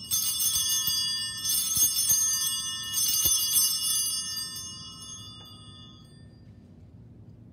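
Altar bells ringing brightly, shaken for about four seconds and then dying away by about six seconds in: the bells rung at the elevation of the consecrated host at Mass.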